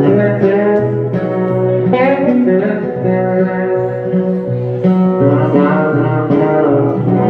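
Live band playing an instrumental passage at the end of a song, with guitars out front and sustained notes, some of them sliding in pitch.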